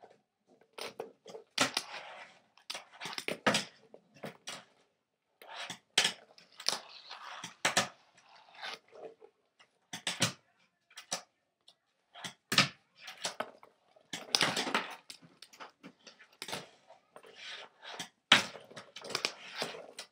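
Fingerboard ridden with two fingers on a small ramp: irregular sharp clacks as the deck pops and lands, with short stretches of the small wheels rolling and scraping over the ramp in between.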